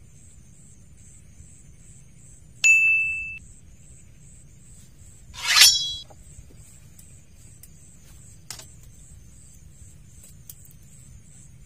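A single bright ring like a small bite-alarm bell on a fishing rod, fading over under a second, then a few seconds later a short, louder rasping sound as a rod is snatched from its holder and struck. Insects chirp in steady quick pulses throughout.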